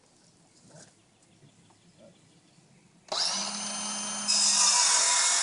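A power tool starts abruptly about three seconds in and runs with a high whine, getting louder about a second later. Before it, only faint scattered ticks of work can be heard.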